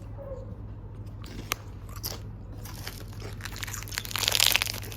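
Someone biting and chewing a crisp snack close to the microphone. There are a couple of single crunches about a second and a half in, then a dense run of crunching that grows louder toward the end.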